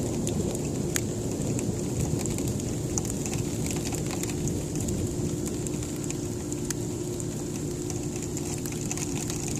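Sleet and freezing rain pattering on the window and house in many small ticks, over a low rumble of winter thunder that eases off in the first seconds.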